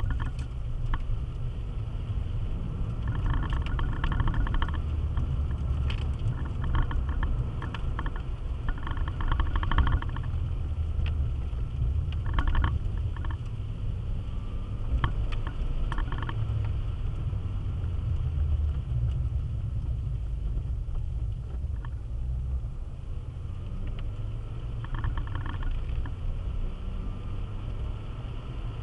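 Steady low rumble of a car's engine and tyres on a wet road, heard inside the cabin, with brief patches of higher hiss every few seconds.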